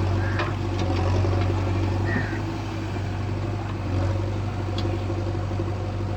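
Heavy diesel engine running steadily at low revs with a constant low hum, with a few faint clicks over it.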